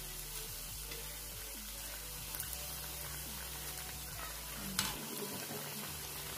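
Yeast donuts deep-frying in hot oil, a steady sizzle, with a single sharp click about five seconds in.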